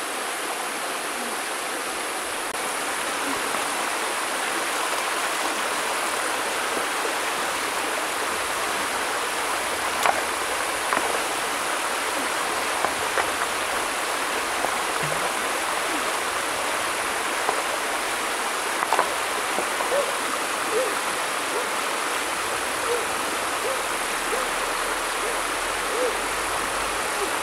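Shallow river rapids rushing steadily over rocks. From about a third of the way in come scattered short, sharp clicks and splashes.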